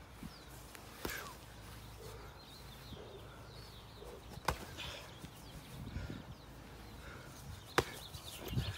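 A few sharp slaps of boxing gloves landing during sparring, spaced a few seconds apart, over faint bird chirps.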